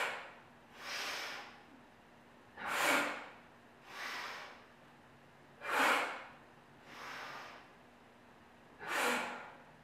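A woman's forceful yogic fire breathing: four loud, sudden exhales about three seconds apart, each followed about a second later by a softer inhale. The stress is on the exhale, as in a powerful cleansing breath.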